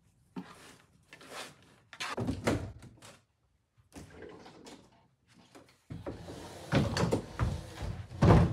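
Clothes being put away in a dresser drawer: a run of knocks and thumps from the drawer and furniture, with clothing rustling, and a louder thump near the end.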